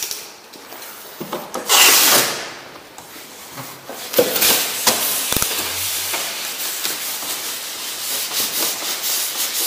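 Rustling and scraping handling noise, with a loud hissing burst about two seconds in and denser, steady rustling from about four seconds on.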